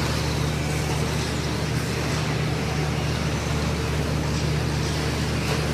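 Radio-controlled racing trucks running laps on an indoor dirt track, heard over a steady low hum that fills the hall.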